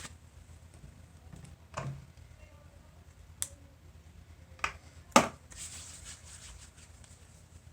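Neck joints cracking during a massage: four short sharp cracks, the loudest about five seconds in, followed by a soft rustle. A faint low hum runs underneath.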